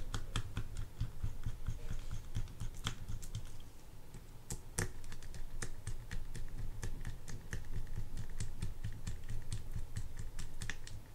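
Light, irregular clicks and ticks of small metal parts of a Daiwa Sealine 400H conventional fishing reel being handled as the side-plate screws are started into their holes, several clicks a second.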